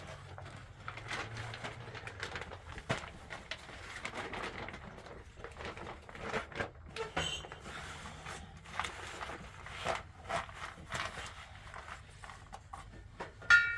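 Dishes and utensils being handled: scattered light clicks and knocks, with one loud ringing clink of metal or crockery near the end.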